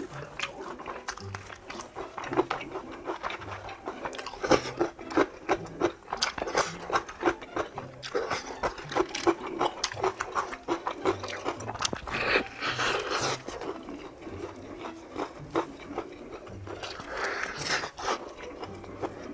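A person biting and chewing crispy fried chicken: many sharp crunches and crackles, with denser runs of crunching every few seconds.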